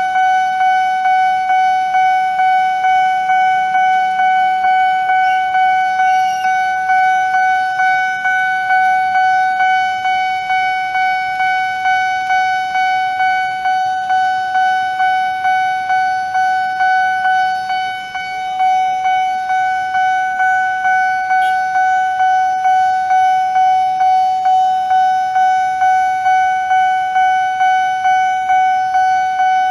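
Railway level-crossing warning bell ringing steadily at about two strokes a second, a single high ringing tone repeated evenly, the alarm that sounds while a train approaches and the barriers are down.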